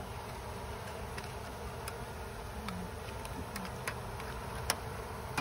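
Honey bees buzzing steadily around their exposed comb, with a few light clicks; the sharpest is near the end.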